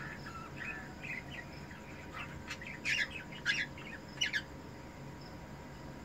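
Ino cockatiel pair chirping while mating: soft scattered chirps, then louder, rapid chirping in quick bursts from about two to four and a half seconds in.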